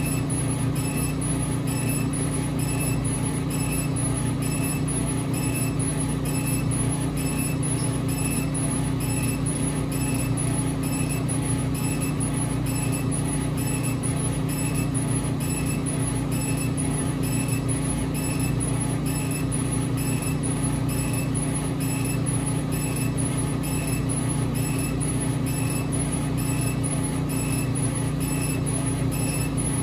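Epilog Fusion M2 40 CO2 laser cutter raster-engraving wood: a steady machine hum with a short high-pitched whir repeating about twice a second as the head sweeps back and forth.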